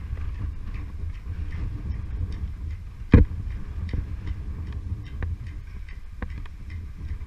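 Wind rumbling on the microphone during a descent down the tower face, with scattered light clicks and taps throughout and one louder knock about three seconds in.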